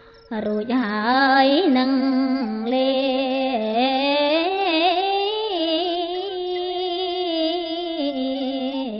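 Khmer smot: a woman's chanting voice in long, wavering melismatic notes, coming in after a brief lull at the start.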